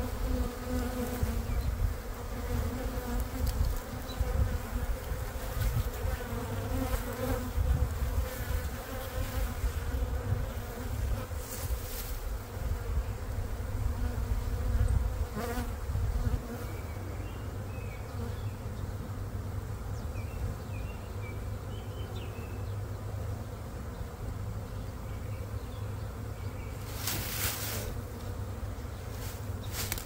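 Honeybee swarm buzzing steadily as loose bees fly around an open hive box and the swarm cluster in the tree. A low rumble on the microphone under the buzz eases off about halfway through, with a few brief rustles and faint chirps near the end.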